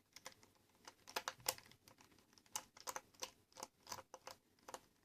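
Faint, irregular small clicks and taps of a screwdriver and the plastic case of a handheld multimeter being handled while the self-tapping screws are taken out of the back.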